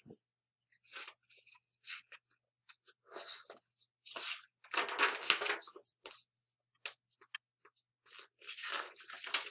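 Paper picture book being handled and its pages turned: irregular rustling and crinkling of paper, loudest in the middle.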